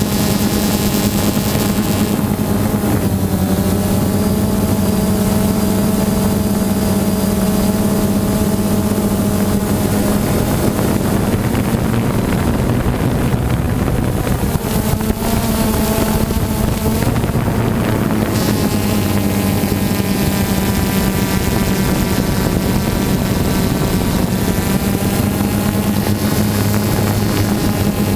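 Motors and propellers of a small camera-carrying drone, heard from its onboard camera: a loud, steady hum made of several tones that drift slightly in pitch now and then.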